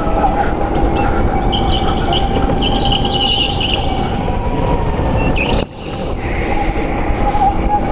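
Go-kart at racing speed heard from on board: a steady motor whine with tyres squealing in intermittent stretches through the corners. The sound briefly drops away about five and a half seconds in.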